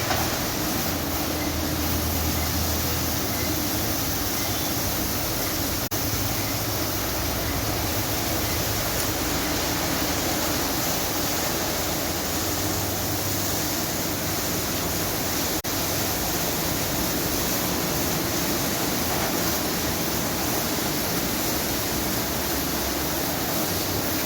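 Automatic car wash spraying water over a car: a steady rush of water.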